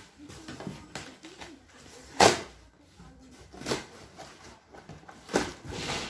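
Cardboard boxes being handled: the inner vacuum-cleaner carton is worked loose inside its outer shipping box, with a few sharp knocks and scrapes, the loudest about two seconds in, and softer rustling of cardboard flaps between them.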